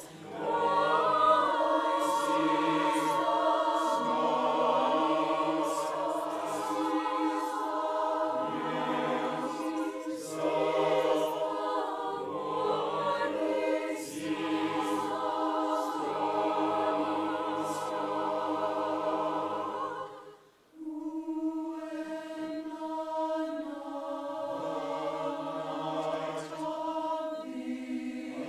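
Large mixed choir of men and women singing in several parts, with sustained, wavering notes and a short break about two-thirds of the way through before the voices come back in.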